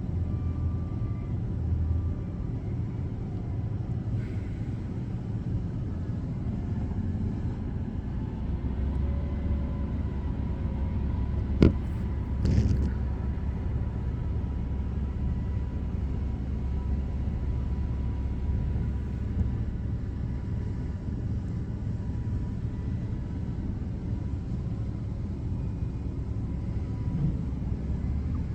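Front-loader garbage truck running with a steady low engine rumble, heavier for a stretch in the middle. A sharp bang comes about twelve seconds in, with a smaller knock just after.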